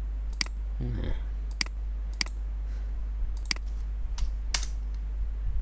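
Computer mouse clicking, six separate sharp clicks at uneven intervals, the last two close together near the end, over a steady low hum.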